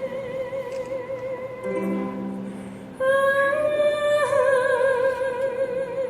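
A high voice singing long held notes with vibrato, over a brief lower chord about two seconds in; the last note is held for about three seconds and then stops.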